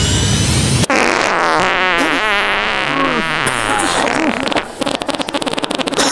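Edited comic sound effects. A rising engine-like whoosh cuts off suddenly about a second in. A wobbling sound with sliding, bending pitch follows, then a fast crackling rattle near the end.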